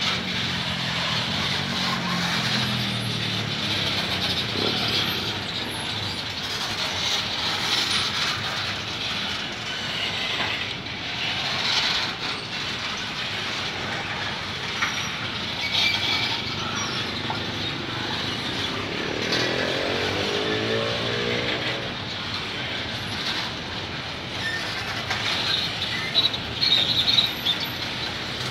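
Empty bauxite train's steel gondola wagons rolling past on the rails: a steady rumble and rattle with sharp clacks from the wheels. A wavering pitched sound comes about two-thirds of the way through, and brief high squeals near the end.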